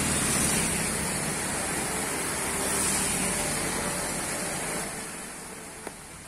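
Swollen, fast-flowing river floodwater rushing turbulently through its channel: a loud, steady rush that becomes noticeably quieter about five seconds in.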